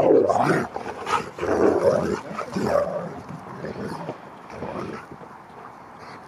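Two huskies vocalising as they play-fight. The sound is loudest in the first three seconds, then dies down.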